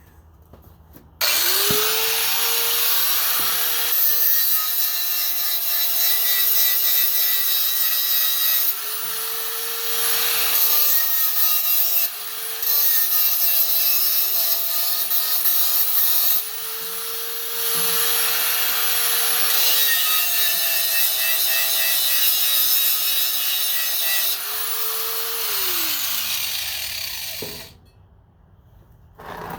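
Angle grinder cleaning up steel before welding: it spins up about a second in, grinds steadily with small dips in motor pitch as it bears on the metal, then is switched off and winds down with a falling pitch near the end.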